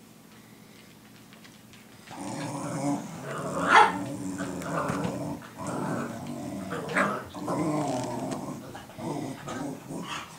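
An adult dog and a puppy growling and barking at each other, starting about two seconds in and going on in short bouts, with one sharp, loud bark near four seconds.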